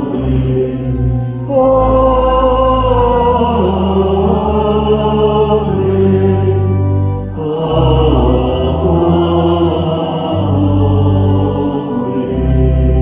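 Church organ holding sustained chords over deep bass notes while a congregation sings two long, slow phrases, a sung response after the benediction.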